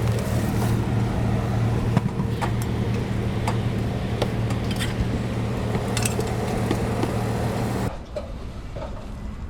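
A machine running with a steady low hum, with a few sharp clicks and knocks over it; the sound cuts off abruptly about eight seconds in.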